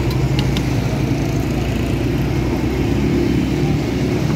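A steady low mechanical hum with a background hiss, and two light metal clinks about half a second in, in keeping with a wire strainer knocking on the fryer.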